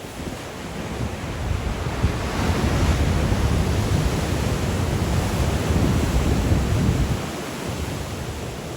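Sea waves breaking on the Black Sea shore in strong wind, with wind buffeting the microphone. The surf swells about two seconds in and eases off near the end.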